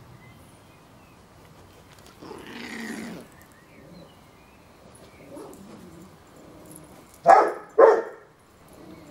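A dog barks twice in quick succession, about half a second apart, near the end, during rough play between a Rottweiler and a Yorkshire terrier. Earlier there is a rough, noisy sound lasting about a second.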